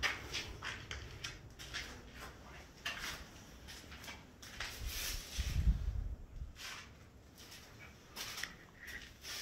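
Light, irregular crunching and clicking of footsteps shuffling over plaster debris on a bare floor, with a brief low bump of phone handling noise a little past the middle.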